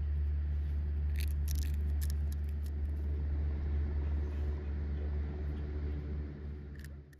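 A steady low mechanical hum with a few light clicks over it, cutting off abruptly at the very end.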